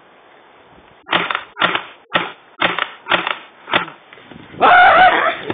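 Gas BB pistol fired six times in quick succession, about two shots a second, followed near the end by a loud yell from a person.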